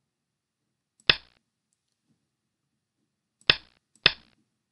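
Three sharp, single clicks, one for each stone played as a Go game is stepped through move by move on a computer Go board: one about a second in, then two more close together near the end.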